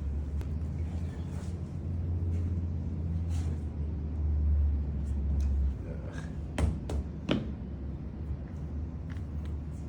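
A low, steady motor hum stops about six seconds in, followed by two sharp clicks less than a second apart.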